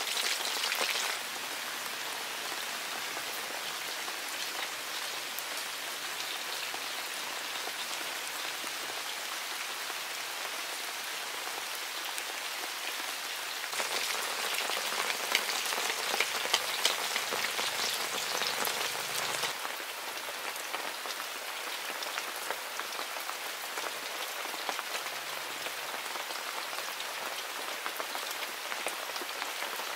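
Cobia steaks frying in oil in a wok: a steady crackling sizzle full of small pops, louder for several seconds in the middle.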